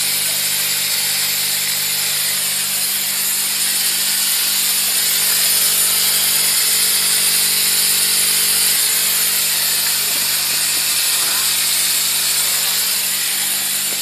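An electric steam cleaner with a built-in wet-and-dry vacuum, running: a steady hiss with a low, even motor hum under it.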